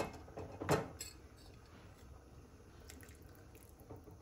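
A wooden spatula knocks against a kadai twice in the first second of stirring, then a faint liquid sound of a simmering vegetable gravy with cornflour slurry dripping in, broken by a few light ticks.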